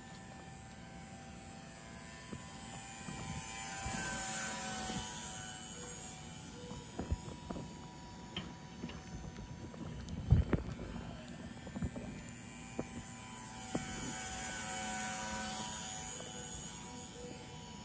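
Micro RC ultralight airplane's small electric motor and propeller whining in flight, swelling twice as it passes close. A few knocks and one louder thump fall around the middle.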